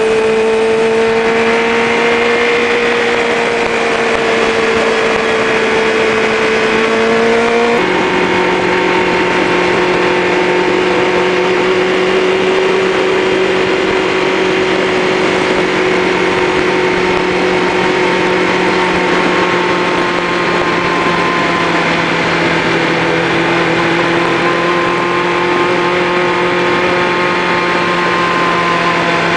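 Motorcycle engine running steadily at cruising speed under heavy wind rush. About eight seconds in its note drops suddenly to a lower, steady pitch, as with a shift up a gear.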